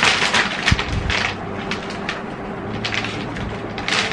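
Shiny metallic plastic packaging pouch crinkling as it is opened and handled: a run of irregular crackly rustles, busiest in the first second and again near the end, with a soft bump under a second in.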